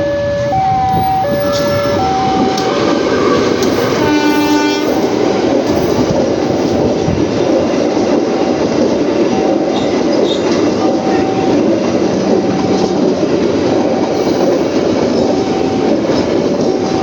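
CC 206 diesel locomotive sounds its multi-chime air horn in one blast of about a second, about four seconds in, then the train passes close by with a steady rumble and wheels clattering over the rail joints. A two-note electronic warning tone alternates at the start and then keeps repeating as single beeps about every second and a half behind the passing train.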